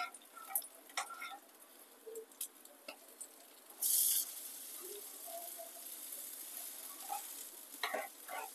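Banana-stem fritters shallow-frying in oil, with a steel spatula tapping and scraping in the pan as they are flipped. A loud burst of sizzling comes about four seconds in as a fritter is turned onto its raw side, then a steady sizzle, with a few more spatula knocks near the end.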